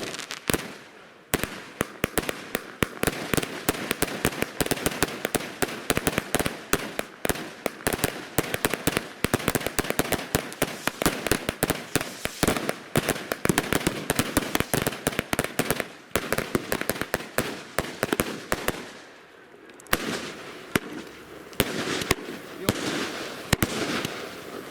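Firework cake (battery) firing a dense, rapid barrage of shots and crackling bursts, with a brief lull about three quarters of the way through before it picks up again.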